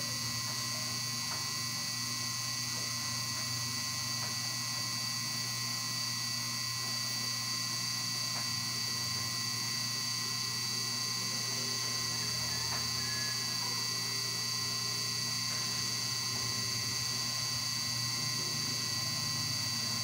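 Steady electrical hum with a few faint high whining tones above it, unchanging.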